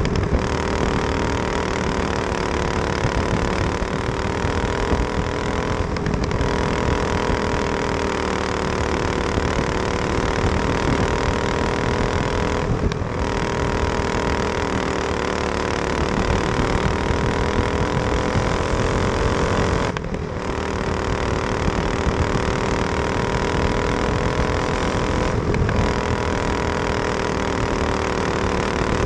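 Racing kart engine running hard on a dirt oval, its pitch slowly rising and falling through the laps, with a brief drop in the note about every six or seven seconds.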